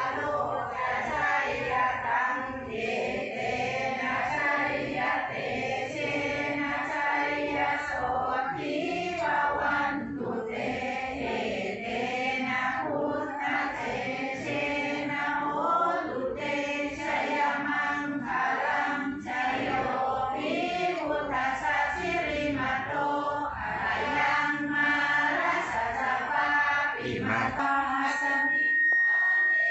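A group of voices chanting Buddhist prayers together in unison. A thin steady high tone sounds briefly near the end.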